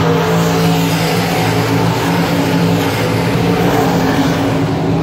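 A pack of dirt-track stock cars racing around the oval, their engines running hard in a loud, steady drone, with one car passing close near the end.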